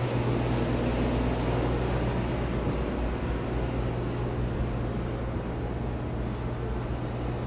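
Outdoor air-conditioning unit running, a steady low hum with fan noise.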